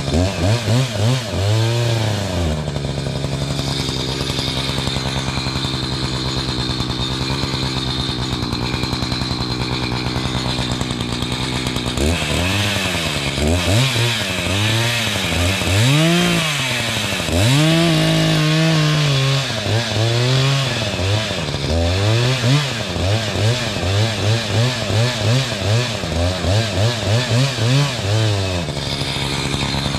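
Two-stroke chainsaw running while cutting firewood. It holds a steady high speed for several seconds, then its pitch rises and falls again and again, ending in quick short revs of about two a second.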